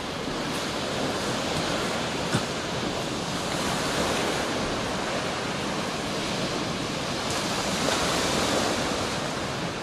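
Sea surf washing onto a shingle beach, a steady rush, with wind buffeting the microphone. A single brief click about two seconds in.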